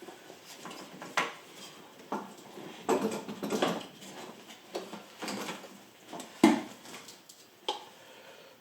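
Metal parts and tools clinking and knocking irregularly while turbo intake parts are handled and unbolted, with one louder knock about six and a half seconds in.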